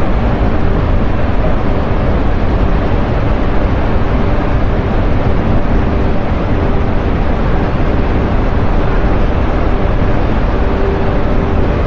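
Steady, loud rushing roar of a waterfall in heavy rain-fed flow, with low wind rumble on the microphone.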